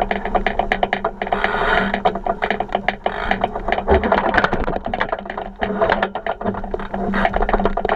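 Dense, fast rattling and knocking from a 49er skiff's hull and fittings as it sails through chop, over a rush of water.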